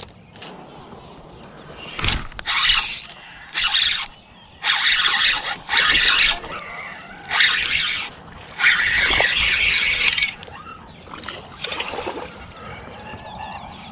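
Water splashing in six loud bursts, each up to a second or so long: a hooked fish thrashing at the pond surface. A steady high insect buzz runs underneath.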